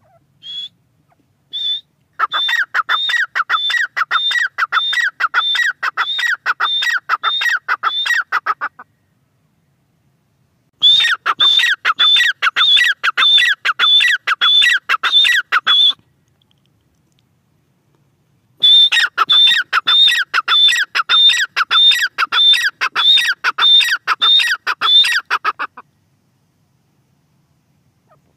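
A grey francolin calling. A couple of single notes come first, then three long runs of loud, rapidly repeated high-pitched notes, each five to seven seconds long, with short pauses between the runs.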